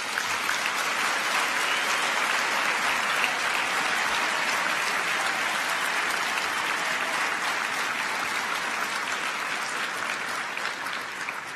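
A large audience applauding: a dense wash of many hands clapping that breaks out at once, holds steady, and starts to die away near the end.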